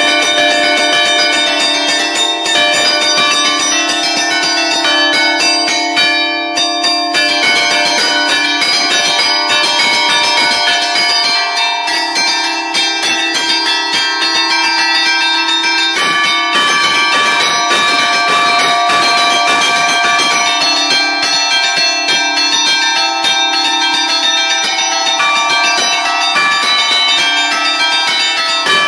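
A peal of five bronze church bells in D, cast by Barigozzi in 1952, struck by hand from a wooden-lever keyboard that pulls the clappers. They play a fast allegrezza tune, the strokes coming so quickly that the bells ring on over one another.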